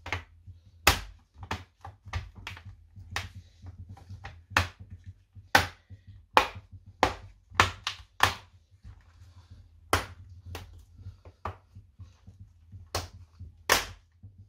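Aluminium bottom cover of a Samsung Galaxy Book laptop being pressed shut by hand: its clips snap into place as a string of about twenty sharp clicks at uneven spacing.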